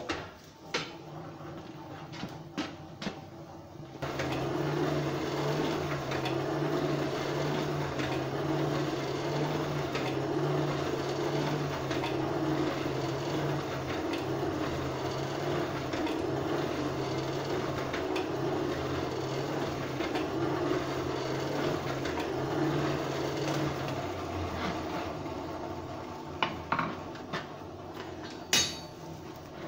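Forge blower running steadily with an evenly pulsing hum, feeding air to the fire while the steel is heated. It starts about four seconds in and stops a few seconds before the end, followed by a few sharp metal clinks.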